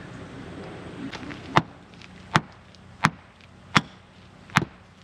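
Five sharp knocks, evenly spaced under a second apart: the CV joint being driven onto the Landcruiser's front axle shaft so that the snap ring, held compressed by a cable tie, pushes past and locks the joint in place.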